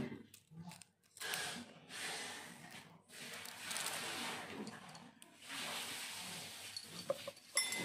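Dry, papery garlic skins rustling and crackling as cloves are peeled by hand, in three spells of a second or two each.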